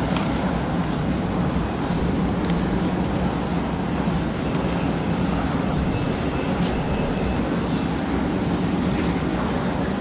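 Steady low rumble of a jet airliner running on the airport apron.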